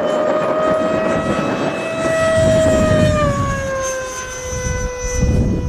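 Electric ducted fan of an FMS Futura model jet whining in flight, its pitch steady and then falling slightly about three seconds in.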